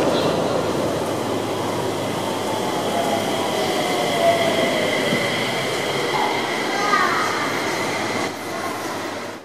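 Mitsubishi Crystal Mover rubber-tyred LRT car pulling into an elevated station: steady rolling noise with an electric whine falling in pitch as it slows to a stop. The sound cuts off abruptly near the end.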